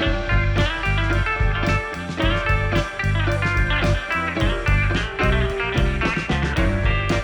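Background music: a guitar-led blues-rock instrumental with a steady beat.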